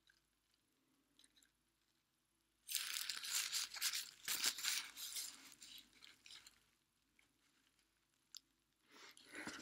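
Plastic bubble wrap crinkling as a hand presses and rubs it right against the camera: a dense crackle starting nearly three seconds in, lasting about four seconds and fading, with another short rustle near the end.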